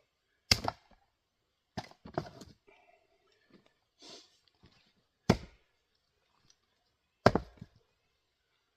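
Single-bit axe with a 3 1/2 pound Craftsman head chopping into firewood rounds: sharp strikes about half a second, five and seven seconds in, with a couple of lighter knocks around two seconds in.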